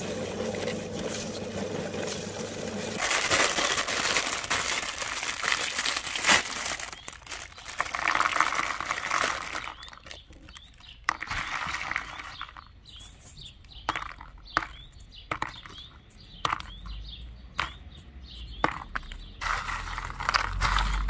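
A steady hum for the first few seconds, then a cellophane bag crinkling, then a run of sharp clicks as hard speckled candy eggs are picked through and knock together in a bowl.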